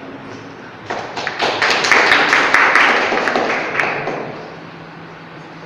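Audience applause: a burst of clapping starts about a second in, holds for about three seconds and dies away.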